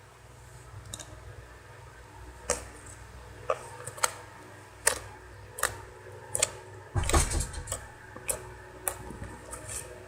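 Mini floam slime, full of foam beads, being squeezed and played with by hand: a series of sharp clicks and pops about once a second, with a louder burst of crackling about seven seconds in.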